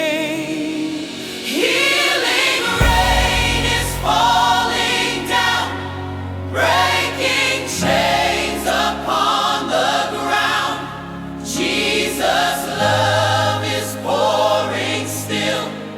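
Gospel worship music: a choir singing in phrases over instrumental backing with steady low bass notes.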